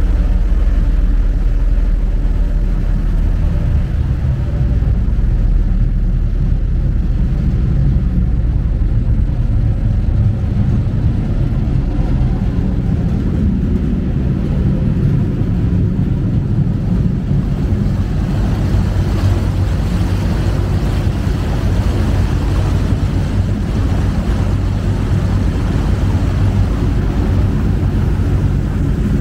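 Steady low rumble of a passenger lake ship's engines, heard from aboard while it is under way. A little past halfway a rushing hiss of wind and churning water joins in.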